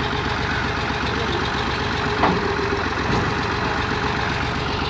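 New Holland Fiat 480 tractor's diesel engine running steadily, with one brief knock about two seconds in.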